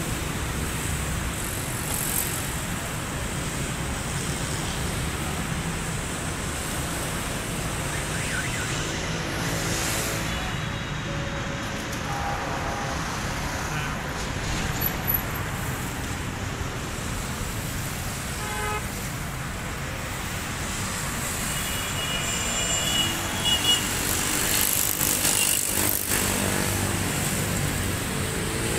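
Steady road-traffic noise, with one vehicle passing more loudly near the end.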